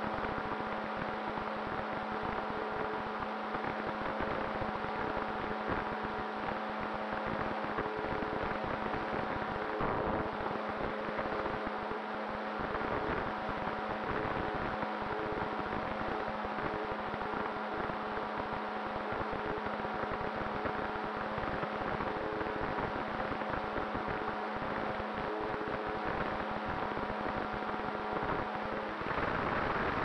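Motor and nose propeller of a radio-controlled ASW 28 model glider running in flight, heard from an onboard camera as a steady hum with a few held tones over rushing air. About a second before the end the tones drop out and the rush of air grows louder.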